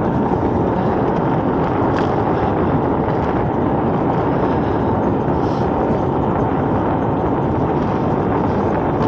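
Steady rushing noise of a moving e-bike ridden on throttle: wind over the camera microphone together with tyres rolling on cracked asphalt.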